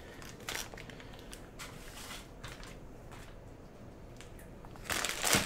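A small plastic bag of metal mounting standoffs being handled: scattered light crinkles and clicks, then a louder crinkling burst near the end.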